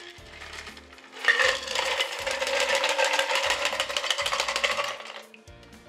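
Ice rattling and clinking in a cocktail shaker for about four seconds as the last of a shaken gimlet is strained out into the glass. Faint background music runs underneath.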